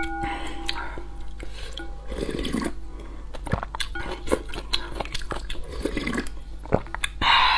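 Close-miked eating sounds: chewing and slurping spicy noodles and broth, with many small clicks of a wooden ladle and chopsticks against a glass bowl, and a louder slurp of broth from the ladle near the end.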